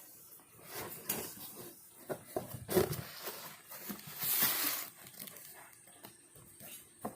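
Parcel packaging being handled and opened: scattered rustles and light knocks, with a tearing sound lasting under a second about four seconds in.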